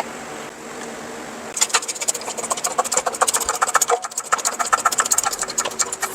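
A steady low hum, then from about a second and a half in a rapid, continuous mechanical clicking and rattling, many clicks a second.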